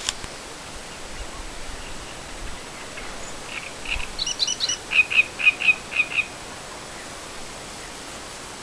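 A small songbird sings one short phrase of rapid, high chirps, starting about three and a half seconds in and lasting under three seconds. A steady outdoor hiss sits under it.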